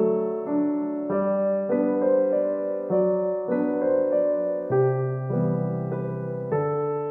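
Background music: a gentle piano or keyboard piece, notes and chords changing about every half second.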